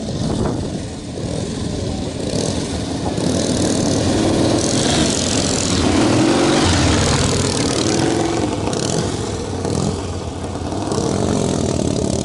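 Two vintage motorcycles riding past on a sand track, their engines getting louder to a peak about halfway through and then fading as they go by.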